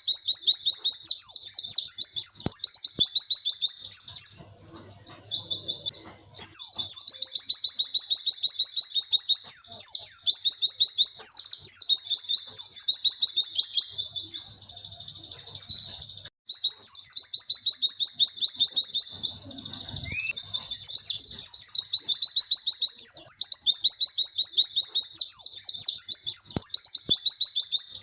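Pleci (white-eye) singing a long, fast run of high, clear 'wit-wit' chirps, nearly unbroken apart from two short pauses.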